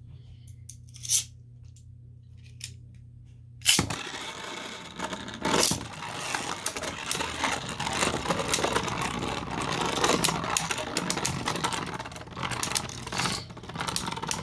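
Beyblade spinning tops launched into a plastic stadium almost four seconds in, then spinning and clashing: a dense rattle of knocks and scraping. Before the launch there are a few light clicks, one sharper one about a second in.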